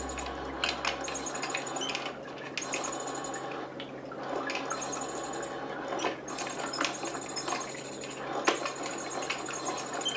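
Kittens at play: scattered light clicks, taps and rustling at an uneven pace, with one sharper knock about eight and a half seconds in.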